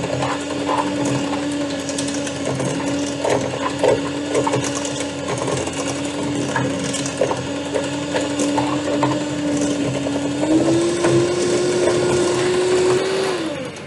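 Electric mixer beating mashed potatoes: a loud, steady motor whine with irregular clicking and clacking that comes from a bent beater. The motor steps up in speed about ten seconds in, then is switched off near the end and winds down.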